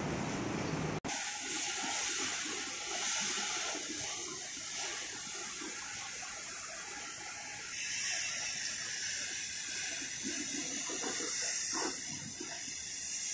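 Steady hiss of water spraying from a car-wash hose, rinsing a soaped pickup truck. The sound breaks off briefly about a second in, then carries on.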